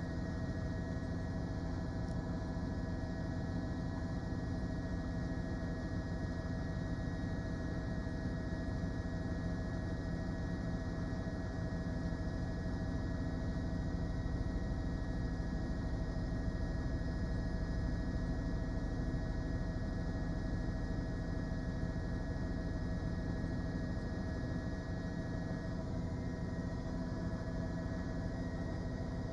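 Steady hum with several constant tones over a low rumble, unchanging throughout.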